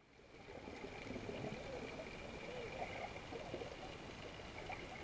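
Muffled underwater ambience fading in: a steady wash of water with short gurgling bubble sounds, and a faint steady high tone.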